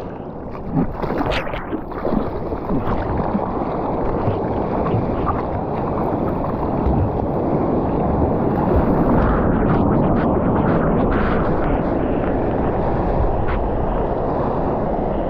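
Steady rush of ocean surf and wind buffeting the microphone, building over the first few seconds, with a few short knocks near the start.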